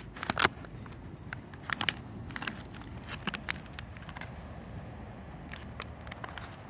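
Crinkly wrapper of a toaster pastry being handled, giving scattered small crackles and clicks over a low steady rumble.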